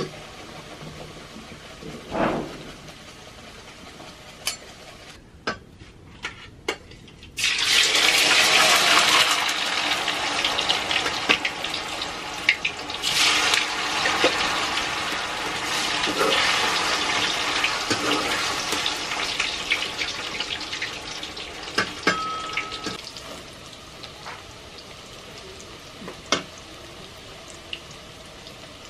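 Paneer cubes frying in hot oil in a metal kadai: a loud sizzle starts suddenly about seven seconds in and slowly dies down over the next fifteen seconds, with a few knocks of a spoon against the pan.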